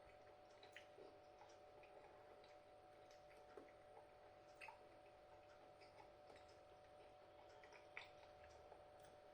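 Near silence: a faint steady hum with scattered soft clicks from someone eating a mouthful, the clearest click about eight seconds in.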